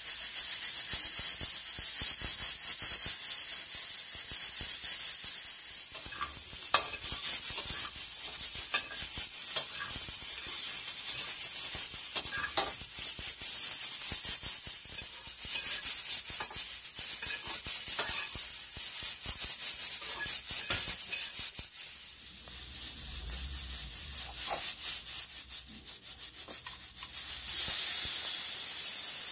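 Bell peppers sizzling and crackling in a hot steel wok as a metal spatula scrapes and stirs them. Near the end this gives way to a steady hiss of steam escaping from a stovetop pressure cooker's valve.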